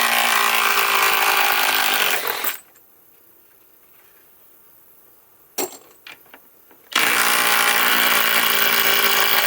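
Cordless impact driver hammering as it backs lag screws out of wood, in two bursts of two to three seconds each, with a few clicks of handling between them.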